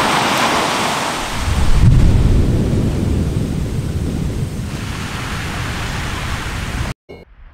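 Volcanic eruption: a deep rumbling blast swells about two seconds in, then a steady rushing roar that cuts off suddenly near the end.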